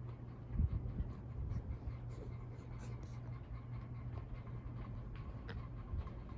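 Nadair Arc-en-ciel 42-inch ceiling fan running at medium speed, its motor giving a slight, steady low hum under the blades' air movement, with a few faint clicks.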